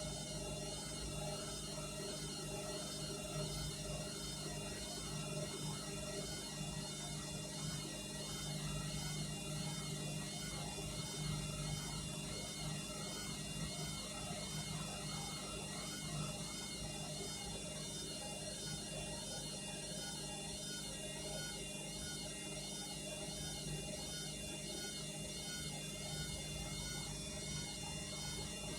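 Front-loading washing machine running a cycle with an overloaded drum: a steady motor hum with a whine over it, wavering slightly and regularly as the drum turns.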